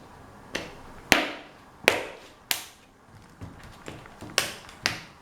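Plastic snap-in clips of a laptop's screen bezel popping loose one after another as the bezel is pried off by hand: about eight sharp clicks at uneven intervals.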